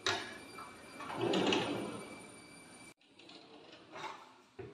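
A modular kitchen drawer sliding on its runners: a sharp click as it is pulled, then a sliding rush about a second in, and a couple of soft knocks near the end.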